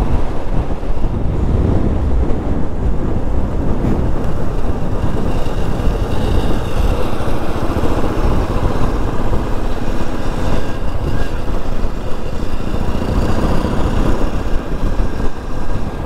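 Motorcycle on the move, its engine running under a loud, steady rush of riding noise.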